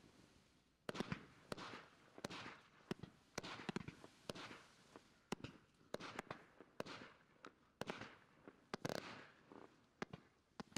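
Low-noise firework cake (Klasek C253NO14 'No Sound Fireworks') firing a run of shots: quiet, sharp pops and short hissing rushes, one or two a second, with no loud bangs.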